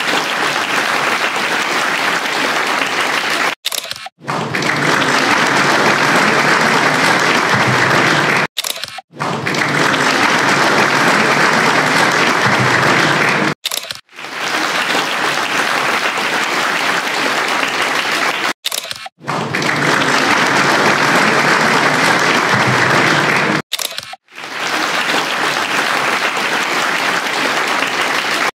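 Audience applauding, in stretches of about five seconds separated by brief near-silent gaps.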